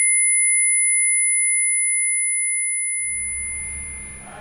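A steady, high-pitched electronic tone with a fainter, higher tone above it, slowly fading out. A low hum and faint room noise come up underneath near the end.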